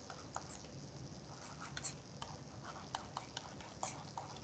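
Light, irregular taps and clicks of a stylus on a pen tablet as handwriting is written, a few per second.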